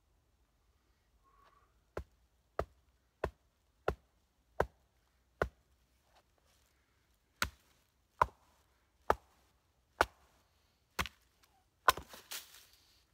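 Hatchet chopping into a small piece of wood to split it: twelve sharp chops, roughly one every two-thirds of a second, in two runs of six with a pause of about two seconds between them. The last chop is the loudest and is followed by a second of rustling and small knocks.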